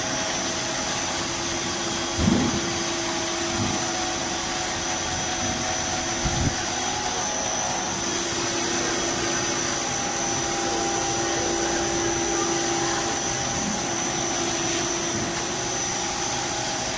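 Snack-pellet extruder line running: a steady machine hum and whir with a constant high whine over it. A brief knock comes about two seconds in and another about six seconds in.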